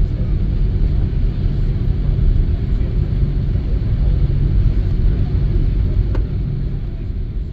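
Steady low rumble inside the cabin of an Airbus A330-300 rolling along the runway after landing, from the engines and the landing gear on the runway, with a light click about six seconds in.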